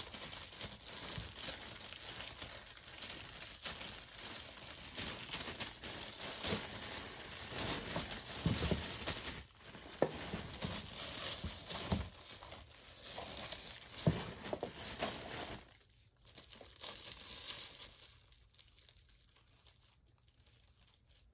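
Plastic bag crinkling and rustling as a small metal table fan is pulled out of it, with scattered clicks and knocks of the fan against the packaging; the rustling dies away about 16 seconds in.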